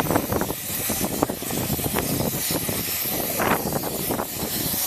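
Lampworking bench torch flame hissing steadily, with an uneven low rumble under it.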